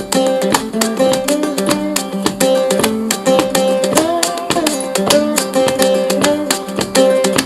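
Instrumental background music: an acoustic guitar picking a quick run of notes over held bass notes, with one note sliding in pitch about four seconds in.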